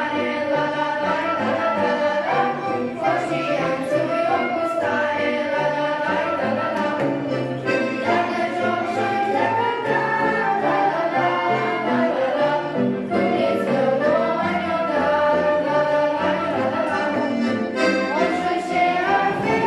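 A group of children singing a song together with electronic keyboard accompaniment, a steady stepping bass under the voices.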